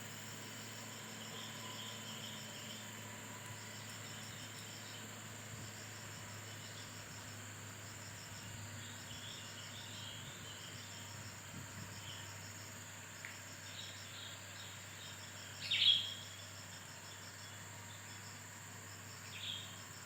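Insects chirping steadily, one of them in an even pulsing trill, with scattered bird chirps and a louder bird call about two-thirds of the way in and another near the end. A low steady hum runs underneath.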